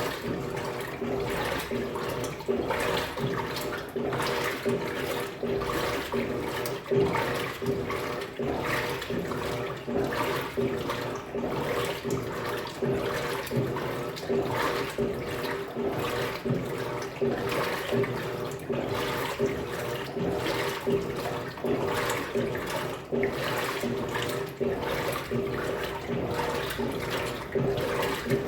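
Electrolux Turbo Economia 15 kg top-loading washing machine in its wash cycle: the motor hums steadily while the agitator churns the water and clothes in rhythmic swishing strokes, about one a second.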